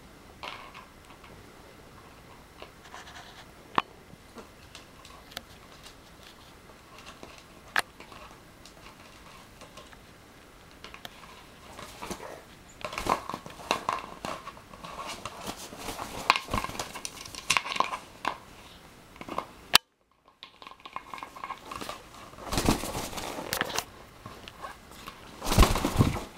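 An empty plastic water bottle is being pecked, bitten and shoved about by a blue-fronted Amazon parrot, giving clicks of beak on plastic and crinkling of the bottle. The clicks are sparse at first, then come in busier bursts from about halfway, with the loudest burst near the end.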